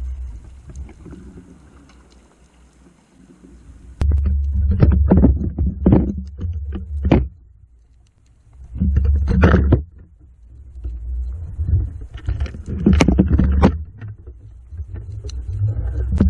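Underwater audio from an action camera hanging on a downrigger line: a low rumble of water moving past it, with clusters of sharp knocks and clicks as the camera rig bumps and swings. The sound jumps in level suddenly about four seconds in.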